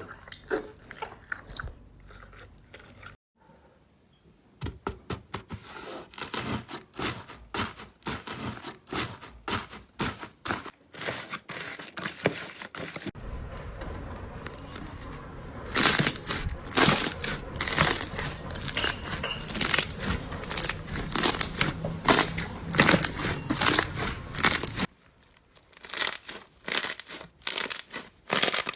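Slime being squeezed and pressed by hand, giving dense crackling, crunchy pops and sticky tearing sounds. It comes in several short takes that start and stop abruptly, and is loudest and busiest in the last third.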